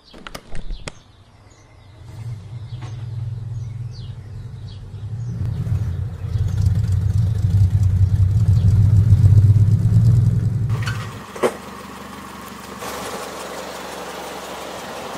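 An engine running with a low, steady hum that grows louder over several seconds and then cuts off abruptly about eleven seconds in, leaving a steady hiss. A few clicks come near the start and one sharp click follows shortly after the engine stops.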